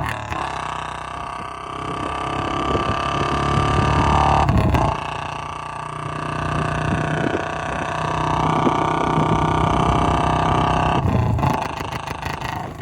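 Royal Enfield Bullet single-cylinder engine running through a long-bottle exhaust, its note swelling and easing off twice as the throttle is worked, with short drops about five and eleven seconds in.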